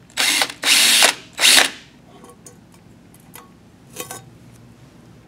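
Cordless drill running in three short bursts, backing out the screws that hold a lamp socket to a metal mounting plate. A few light clicks and one short rattle follow about four seconds in.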